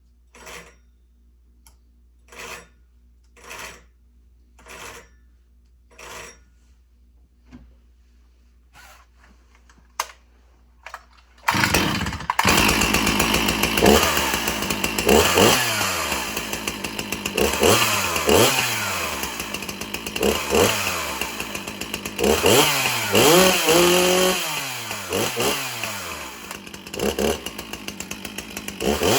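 Two-stroke chainsaw being pull-started: several short pulls on the starter cord about a second or so apart, then about eleven seconds in the engine catches and runs, revved up and down over and over.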